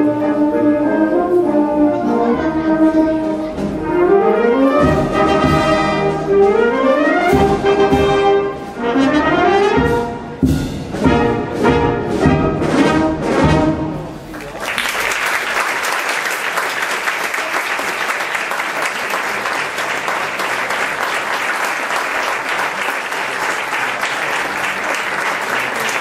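Wind band playing the closing bars of a pasodoble: brass and woodwinds in rising runs, ending on a string of short accented chords with drum hits. From about 15 seconds in, the audience applauds steadily.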